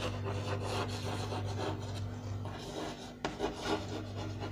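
Chalk scratching on a blackboard as words are written out stroke by stroke, with a sharp tap about three seconds in. A steady low hum runs underneath.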